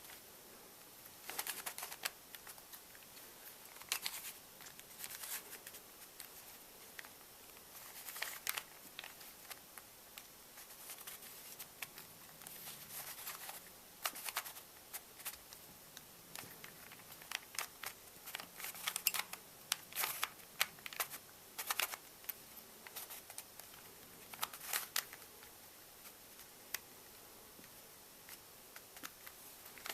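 A plastic Rubik's cube being twisted by hand: irregular bursts of sharp clicking as its layers are turned, with short pauses between turns.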